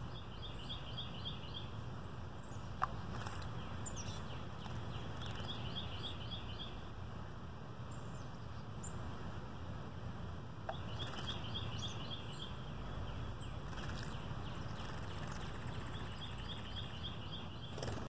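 A songbird singing a short phrase of about six quick high notes, repeated four times roughly every five seconds, over a steady low background rumble. Two sharp ticks stand out, about three seconds in and near eleven seconds.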